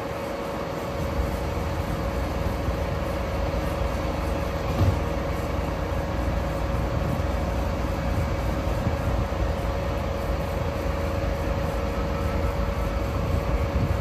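Heavy diesel construction machinery running steadily, a low rumble with a constant whine over it, and one short knock about five seconds in.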